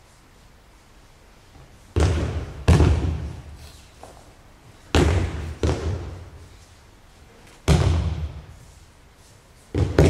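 Bodies hitting tatami mats in aikido breakfalls and throws: about six heavy thuds, mostly in pairs a little under a second apart, each dying away in the reverberation of a large hall.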